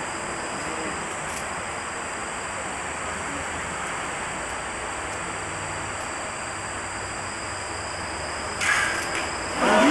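Steady hiss of an old videotape recording in a quiet hall, with a faint high steady whine, while a kyudo archer holds at full draw. About eight and a half seconds in comes a short, sudden sound as the yumi's string is loosed, and voices break out right at the end.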